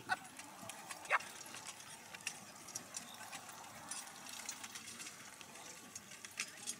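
A pair of horses pulling a marathon carriage over grass: irregular hoof beats and clatter from the carriage, with a short rising cry about a second in.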